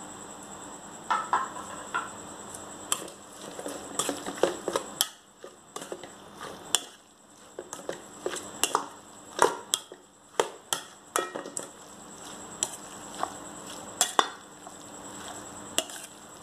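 A metal spoon stirring and scraping through a chopped eggplant salad in a stainless-steel bowl: irregular clinks and scrapes against the bowl, some ringing briefly.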